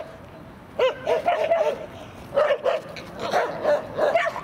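Dogs barking in short, high-pitched yaps, a few spaced barks at first and then a rapid run of them from about two seconds in.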